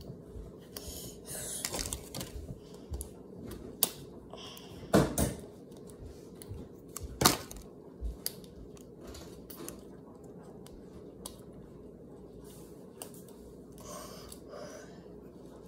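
Hard plastic clicks, knocks and rubbing as a hollow plastic ball-shaped toy capsule is turned and twisted in the hands. The sharpest knocks come about four, five and seven seconds in; after that the handling goes quiet.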